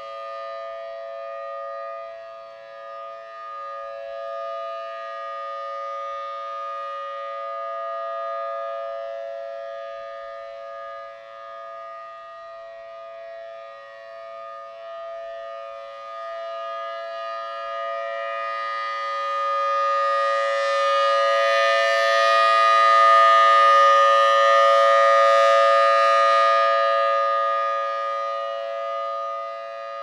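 Federal Signal Thunderbolt 1000T rotating mechanical outdoor warning siren sounding a steady tone during a test. Its pitch holds level while the volume swells and fades as the turning horn sweeps past, loudest about three quarters of the way through.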